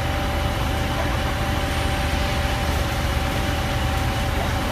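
Sport quad bike (ATV) engine idling steadily, with no revving.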